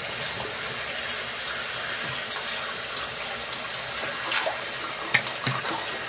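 A bathroom tap running into the sink, a steady rush of water, with a couple of short sharp knocks about five seconds in.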